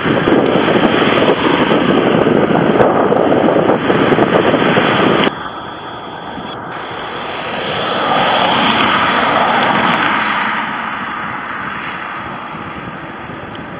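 Jet engine noise from a departing twin-engine airliner climbing away, mixed with wind on the microphone, cutting off abruptly about five seconds in. Then a quieter rushing sound swells and fades, as of a vehicle passing on the road.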